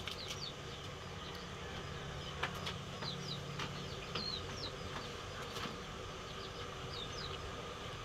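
Small birds chirping in short, high calls every second or so, over a steady low hum, with a few sharp knocks.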